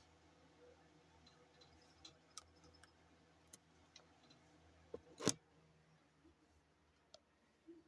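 Near silence in a small room, broken by scattered light clicks and taps, with one much sharper click a little past five seconds in.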